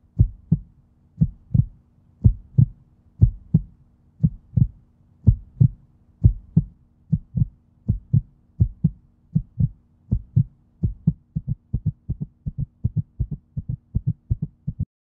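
Heartbeat sound effect: paired lub-dub thumps that speed up steadily, from about one beat a second to more than two a second near the end.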